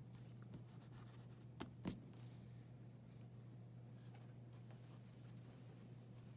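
Faint drawing strokes on paper, with two light taps close together about two seconds in, over a steady low hum.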